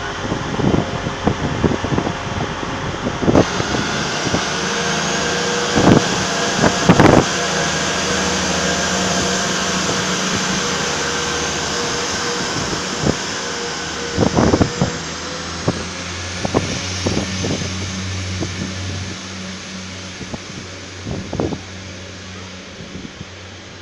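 Diesel multiple-unit train running past along the far platform track: a steady engine and rolling drone with scattered clicks and knocks, fading slowly toward the end. A faint high whine rises about two thirds of the way through.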